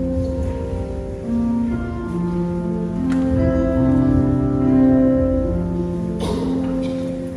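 Slow instrumental music played on a keyboard instrument, with long held notes and chords changing every second or so. There is a brief noise about six seconds in.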